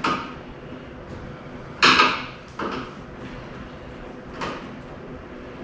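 A few sharp knocks and clanks from hand tools working on bolts of a Bandolero race car's frame, the loudest about two seconds in.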